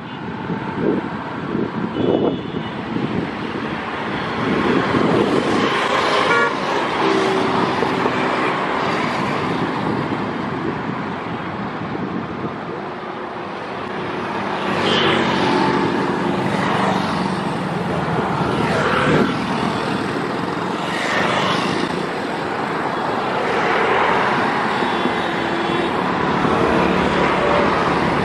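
WDP4B diesel-electric locomotive with its EMD two-stroke diesel engine running as the train approaches, its horn sounding several times.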